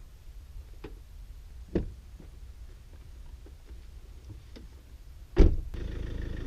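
Faint scattered ticks and a soft knock, then a vehicle door shutting with a loud thud about five seconds in. The vehicle's engine then runs with a steady hum.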